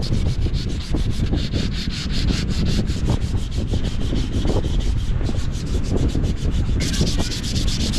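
Wooden speargun stock being sanded by hand: quick, even back-and-forth rasping strokes, about six a second, turning harsher near the end.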